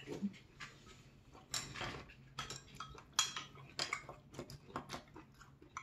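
Wooden spoon and chopsticks tapping and clinking against ceramic bowls in scattered short clicks, with soft eating sounds in between.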